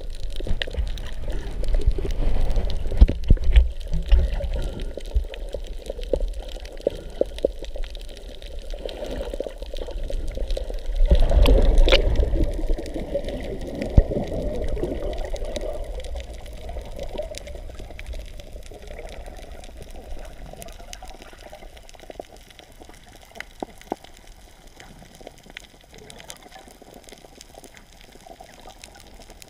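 Water sloshing and bubbling around an action camera held underwater by a snorkeler, muffled, with scattered knocks and clicks. It is loudest early on and again about eleven seconds in, then fades to a quieter underwater hush.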